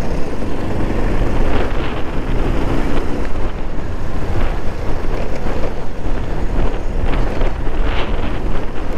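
Wind rushing over the microphone of a moving motorcycle, a loud, steady buffeting with the bike's running underneath.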